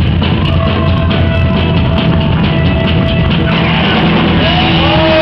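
Rock band playing live: electric guitars, bass guitar and a drum kit at a loud, even level.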